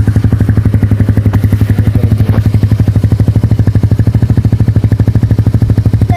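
Scooter engine idling through an Akrapovic exhaust with no silencer insert: a loud, steady, evenly pulsing exhaust note.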